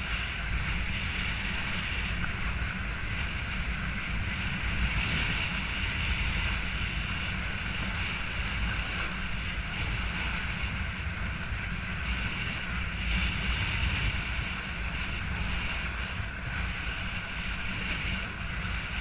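Wind rumbling on the microphone of a camera riding with a kiteboarder, over a steady hiss of water rushing under the board as it planes across shallow sea.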